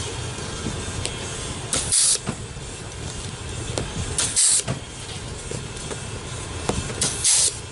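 Pneumatic hog ring gun firing three times, about two and a half seconds apart, each shot a sharp click with a short hiss of air as it clinches a hog ring through the seat cover.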